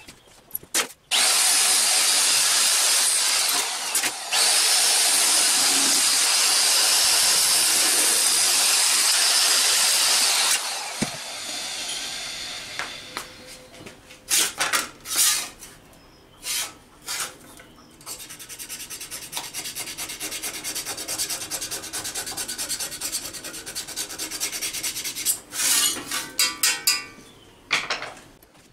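A steady harsh rasping of an abrasive worked against sheet steel runs for about nine seconds from about a second in, with a brief break partway. It is followed by quieter handling of the steel sheet with a few light knocks.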